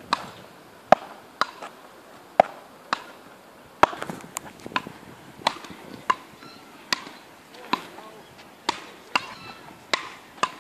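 Ball hit back and forth between two solid paddle rackets in a continuous frescobol-style rally: a steady run of sharp knocks, about one every two-thirds of a second.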